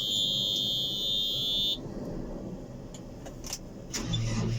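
JCB 540-170 telehandler's high-pitched warning buzzer sounds steadily for nearly two seconds as the ignition is switched on. A few clicks follow, then the diesel engine starts and runs about four seconds in.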